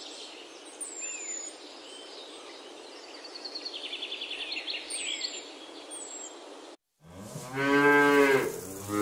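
A steady hiss with a few faint bird chirps and a rapid trill, then after a brief break a cow moos loudly in one long low moo, with a second moo starting near the end.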